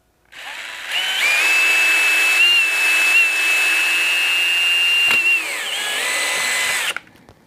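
Power drill boring a hole through a motorcycle saddlebag panel: the motor spins up and runs with a steady high whine, drops in pitch about five and a half seconds in, and stops about a second later.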